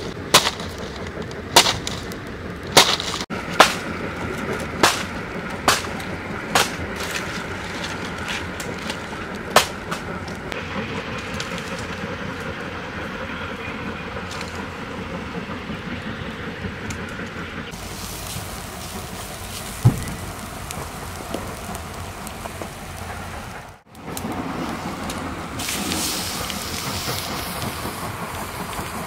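Dry palm-leaf stalks snapped by hand, a sharp crack every second or so for about the first ten seconds, then a steady hiss from a wood cooking fire burning under a pot.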